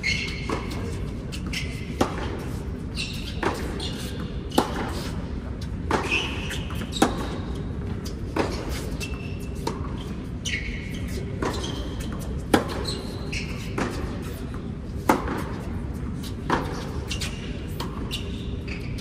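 Tennis rally on an indoor hard court: sharp pops of racket strikes and ball bounces about every second, echoing in the large hall, with short high squeaks in between.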